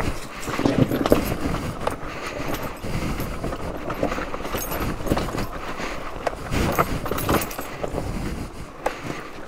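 Dual-sport motorcycle picking its way down a steep hill of loose rock, engine running low, with rocks knocking and clattering under the tyres throughout.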